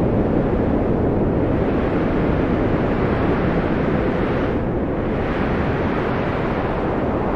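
Wind blowing steadily, a deep rushing noise, its higher hiss easing briefly about four and a half seconds in before rising again.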